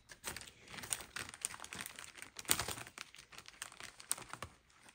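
Plastic packaging crinkling as it is handled, in irregular crackles that die down near the end.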